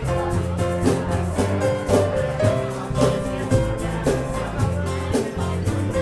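Music with guitar and a bass line over a steady beat.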